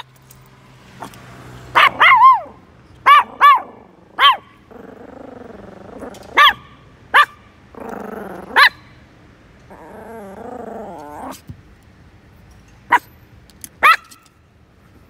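Chihuahua barking in about ten short, sharp yaps, several in quick pairs, with low wavering growls between them; after a lull of a couple of seconds it barks twice more near the end.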